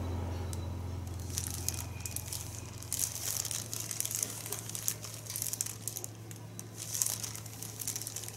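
Clear plastic bag around a figure's base crinkling in short, irregular bursts as the figure is handled and turned. A low note fades out over the first few seconds.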